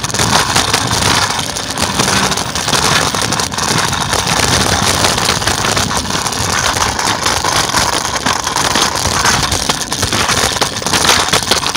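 Scooter rolling along a concrete sidewalk: a loud, steady rattle and rumble from the wheels and frame that drowns everything else.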